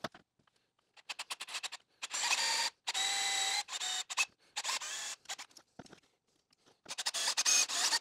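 Power drill turning a tap-size drill bit through a right-angle adapter, run in several short bursts of a whine with pauses between. It is drilling 3.3 mm holes to be tapped for M4 threads.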